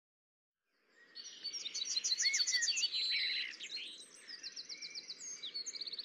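Birds chirping and singing, with quick high trills and short chirps overlapping, starting about a second in.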